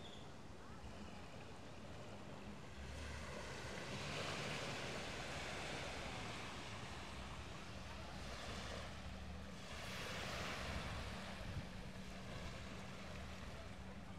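Ocean surf washing onto a beach, swelling about three seconds in and again about eight seconds in, over a steady low hum.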